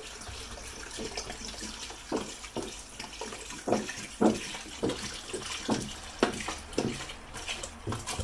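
Water pouring from a plastic gallon jug into a stainless steel pressure-cooker pot of chicken bones, glugging at about two a second from about two seconds in as air bubbles back into the jug.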